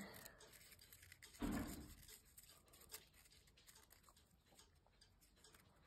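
Mostly near silence, with a brief rustle of folded paper about one and a half seconds in and a few faint clicks later, as paper Sonobe origami units are handled and slotted together.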